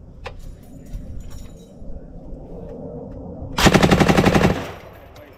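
A short burst of fire from a turret-mounted belt-fed machine gun: one run of rapid, evenly spaced shots lasting about a second, starting about three and a half seconds in.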